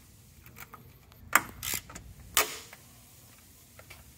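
Hand ratchet with a long socket extension turning a bolt on an engine's aftercooler: a few sharp metal clicks and knocks with small ticks between, the loudest about a second and a half and two and a half seconds in.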